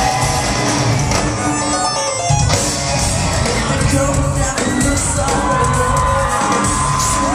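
Live post-hardcore rock band playing loud with distorted guitars, drums and singing, heard from within a concert crowd that shouts along. The band cuts out for a split second about two seconds in before crashing back in, and a long high note is held through the second half.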